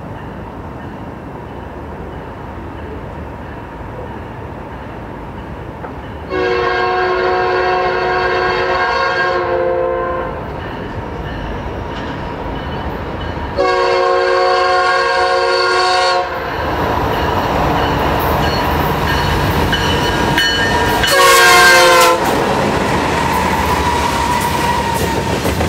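Canadian National freight train's diesel locomotive air horn sounding two long blasts and then a short one, the short blast dropping slightly in pitch as the locomotive goes by. Underneath, the rumble of the lead diesel locomotives and the wheels on the rails swells as the train approaches and passes close, with clickety-clack from the freight cars.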